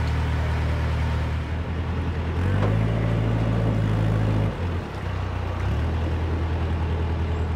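Narrowboat's diesel engine running at low revs as the boat manoeuvres. The note steps up about two and a half seconds in, dips briefly a couple of seconds later, then picks up again as the throttle is worked.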